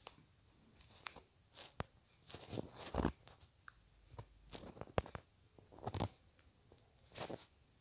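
Scattered soft clicks and short rustles of a smartphone being handled and tapped close to its microphone, the louder ones about three, five, six and seven seconds in.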